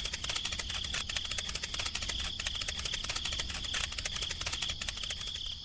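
Rapid, even clicking rattle, many clicks a second, over a thin steady high tone.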